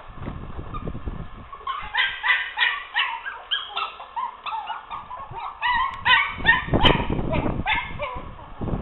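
Forty-day-old Maltese puppies yapping in a rapid run of short, high-pitched yips that starts about two seconds in, about three a second. There is a low rumble near the start and again about seven seconds in.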